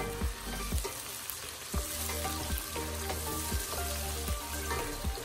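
Diced tomatoes and onions sizzling in hot oil in a stainless steel pot, stirred with a wooden spatula that knocks and scrapes against the pot again and again.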